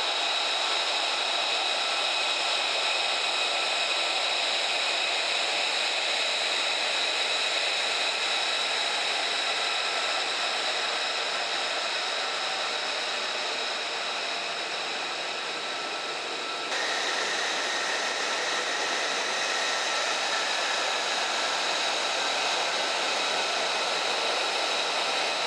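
F-35A Lightning II's Pratt & Whitney F135 turbofan running on the flight line: a steady jet whine with several high held tones over a rushing hiss. The sound changes abruptly about seventeen seconds in.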